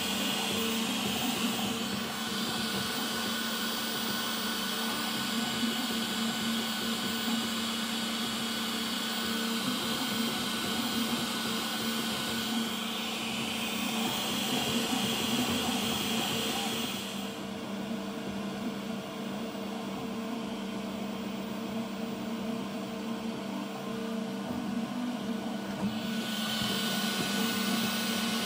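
3D printer running a print: a steady mechanical whir of its fans and motors with a low hum underneath. A higher hiss in the sound drops away for several seconds past the middle, then returns near the end.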